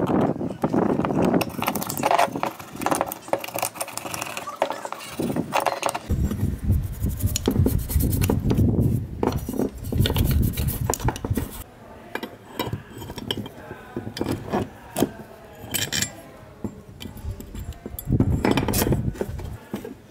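A screwdriver scraping grime out of the bearing seat of an electric fan motor's metal end bell, then a toothbrush scrubbing the end bell, with light clinks of metal parts and tools. The scrubbing turns fuller and lower about six seconds in and stops near the middle, leaving scattered clinks and a last burst of handling near the end.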